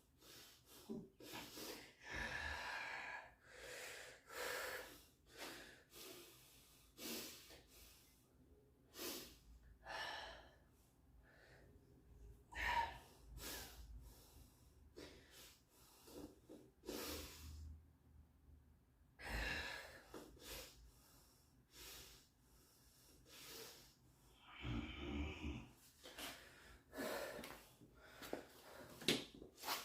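A man breathing hard and unevenly, in quick sharp exhales and gasps, winded from heavy barbell deadlift sets.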